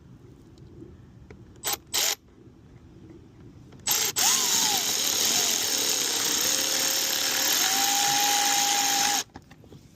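Cordless drill driving screws up into a car's plastic side skirt: two quick trigger blips, then about five seconds of continuous running. The motor pitch sags and wobbles under load, then rises and holds steady near the end.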